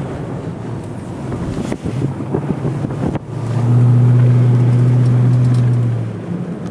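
A small engine running with wind buffeting the microphone. About three seconds in it settles into a loud, steady low hum, which fades near the end.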